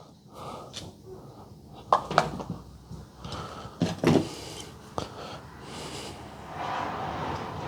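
Small clicks and knocks of wires and hand tools being handled during electrical wiring work, with a short stretch of rustling near the end.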